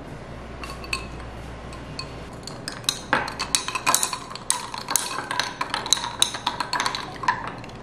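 Coffee being stirred in a drinking glass: a few light clicks, then from about three seconds in a quick, busy run of clinks against the glass with a slight ringing, stopping shortly before the end.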